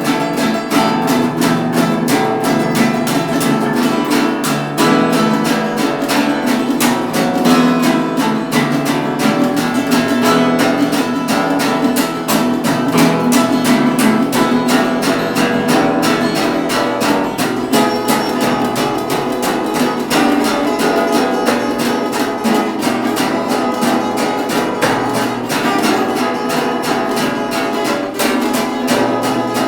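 Acoustic blues instrumental: strummed acoustic guitar with other plucked strings over a steady, quick rhythm.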